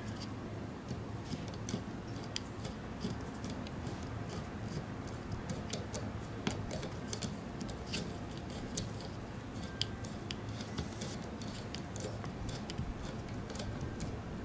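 Small screwdriver turning screws into an aluminium motor bracket: irregular light metallic clicks and taps from the screwdriver, screws and bracket, over steady low background noise.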